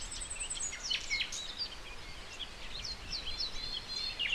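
Outdoor birdsong: several birds chirping and whistling, with a rapid high trill at the start, over a faint low rumble.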